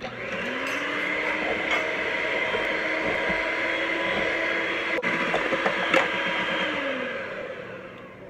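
Electric hand mixer running steadily, its beaters whirring through an egg, milk and sugar custard mix in a stainless steel bowl, with two sharp knocks about five and six seconds in. The motor slows and stops about seven seconds in.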